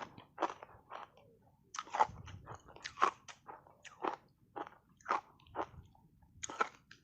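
Ice chunks coated in matcha powder being bitten and chewed, with sharp crunches coming about twice a second.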